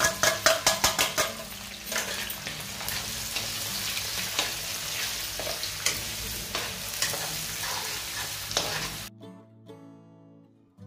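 Green chillies and grated raw turmeric sizzling as they fry in hot oil in an aluminium kadhai, stirred with a steel ladle, with a quick run of scraping clicks in the first second or so. The sizzle cuts off abruptly about nine seconds in, leaving soft background music.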